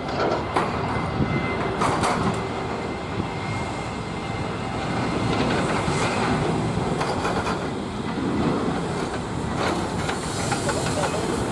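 Boeing 737-800's CFM56-7B turbofan engines running at high power as the jet moves along the runway, a steady rushing noise that grows louder near the end, with a few sharp clicks.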